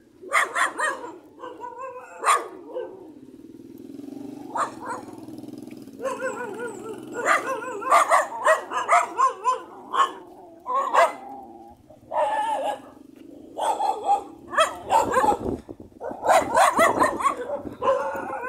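Several street dogs barking over and over in quick bursts, some barks overlapping, as they come at a man walking his dog.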